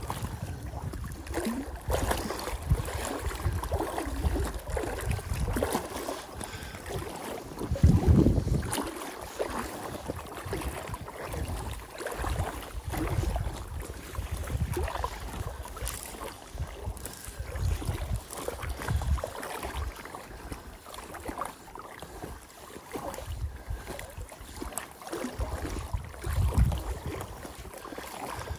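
Wind buffeting the microphone in uneven gusts, strongest about eight seconds in, over water lapping around a belly boat (float tube).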